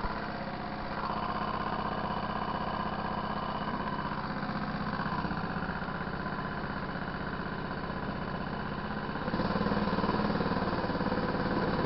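Go-kart engine running steadily as the kart laps the track, getting louder about nine seconds in.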